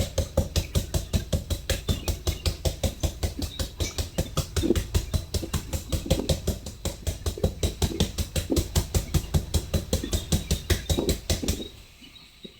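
Green papaya being shredded by hand in quick, even strokes, about five a second, each with a dull thud. The strokes stop shortly before the end.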